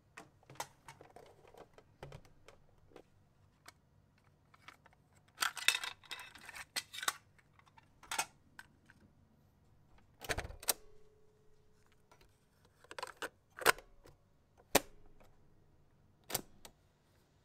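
Plastic clicks and rattles of a cassette tape being handled and loaded into a Bell & Howell cassette recorder, with sharp clicks from its cassette door and piano-key buttons and a brief hum after one loud click midway. The last click, near the end, is the play key going down.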